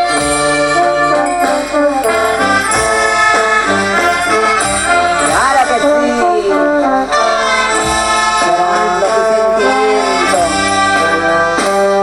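Brass band playing dance music, with trumpets and trombones carrying the melody over low brass notes, and a few sliding notes about halfway through.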